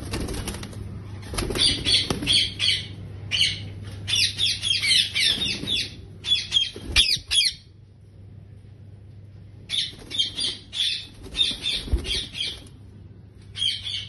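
Indian ringneck parakeets squawking in several bouts of harsh, rapidly pulsing calls, with a lull just past the middle. A bird's wings flap near the start.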